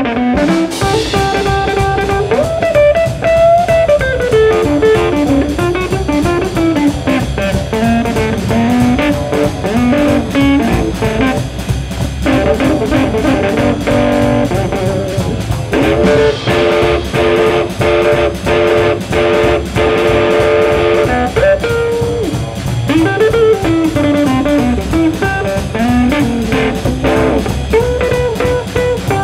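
Instrumental break in a blues-styled band recording: an electric guitar plays a winding lead line with bending notes over a steady drum-kit beat.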